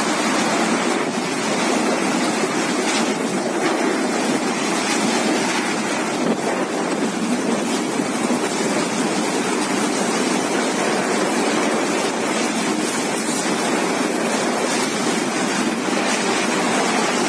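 Cyclone wind and driving rain: a steady, unbroken rushing roar.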